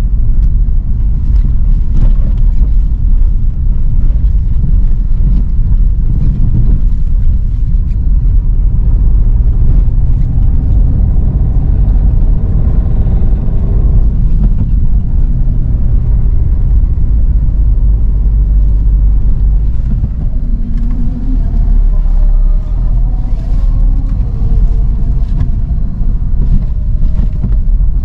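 Steady low rumble of a car driving slowly on a rough lane, heard from inside the cabin: engine and tyre noise.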